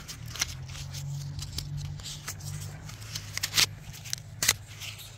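Black plastic drip-irrigation tubing and its push-in fittings handled close to the microphone: rubbing with a run of sharp clicks and snaps, the loudest a little past the middle and again about four and a half seconds in, over a low steady hum.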